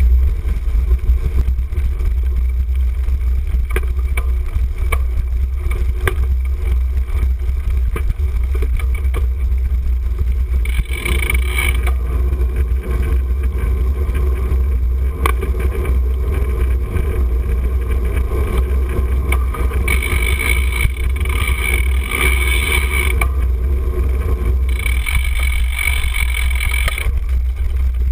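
Steady wind buffeting and low rumble on a handlebar-mounted camera as a cyclocross bike rides over rough grass, dirt and pavement. A higher buzzing rattle from the bike cuts in and out three times.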